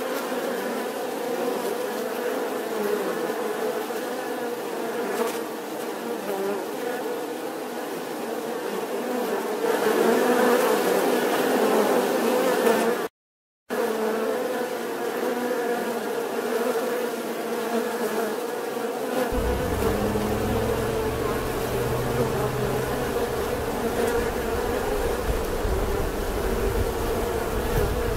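Many honeybees buzzing in a steady, dense drone. It drops out for half a second about 13 seconds in, and from about 19 seconds a low rumble runs underneath the buzzing.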